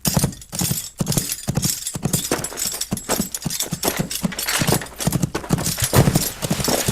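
A fast, uneven run of hard clopping knocks: foley steps, like hoofbeats or footfalls on a hard surface.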